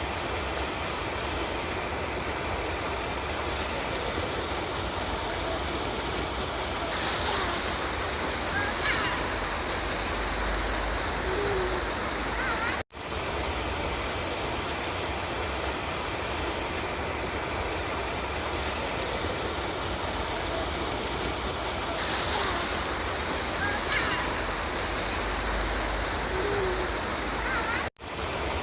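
River water flowing in a steady, even rush, with a few brief faint chirps over it. The sound drops out for an instant twice, about halfway and near the end.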